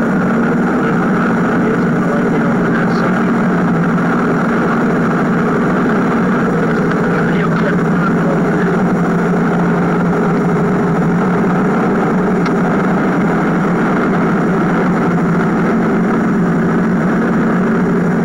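Steady drone of a car's engine and road noise heard from inside the cabin, even and unchanging throughout, on a muffled, noisy tape recording.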